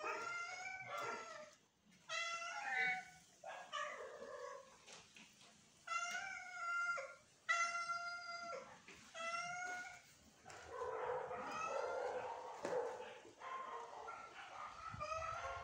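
Domestic cats meowing over and over: a string of long, drawn-out meows about a second apart, running together and overlapping from about two-thirds of the way in.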